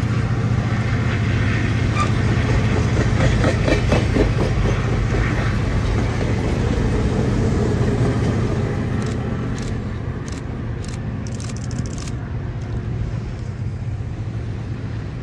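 Diesel-hauled passenger train running by, EMD diesel locomotive engine droning steadily with the wheels clicking over rail joints. A few short high squeaks come near the end as the sound grows fainter.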